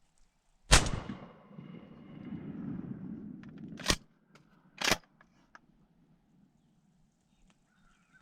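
A single shotgun blast at a wild turkey, loud and sudden, with a long fading echo. Two sharp knocks follow a few seconds later.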